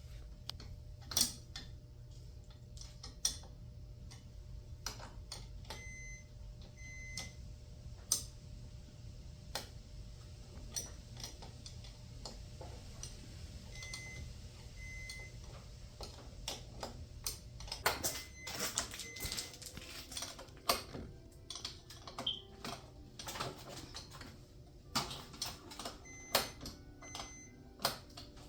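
Scattered metallic clicks and knocks of hand tools working the bolts on garage door spring hardware, coming more often in the second half. A faint low hum runs under the first half.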